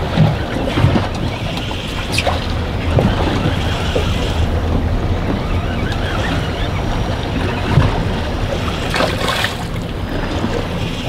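Wind buffeting the microphone and choppy sea slapping against a boat's hull, over a steady low hum.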